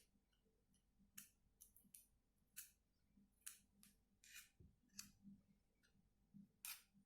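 Faint, irregular clicks and scrapes of a spoon against a bowl as a thick honey, turmeric and black pepper paste is stirred.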